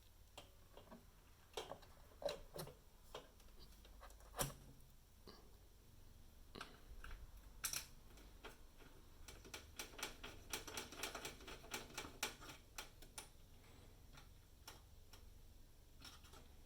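Faint clicks and taps of a graphics card and PC case hardware being handled and fitted, with a few louder knocks and a quick run of small rapid clicks about ten seconds in.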